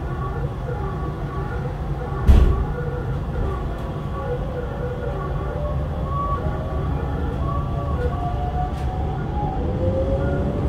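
Interior of a Hokuso 7300 series train: a steady low hum, a single loud thump about two seconds in, then near the end the Toyo GTO-VVVF inverter's whine starting to rise in pitch as the train accelerates.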